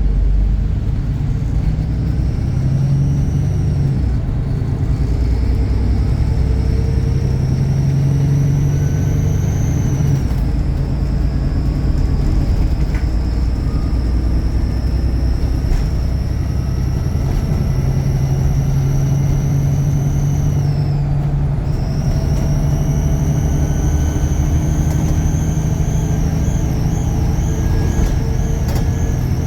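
Bus diesel engine working hard, with a high turbocharger whistle over the low engine rumble. The whistle rises and falls with the engine's load, drops away briefly about two-thirds of the way through, then climbs again and wavers near the end.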